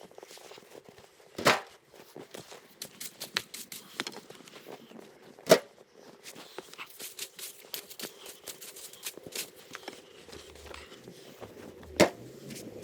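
Firewood logs being handled and set down, with three loud wooden knocks and a run of small clicks, scrapes and rustles between them.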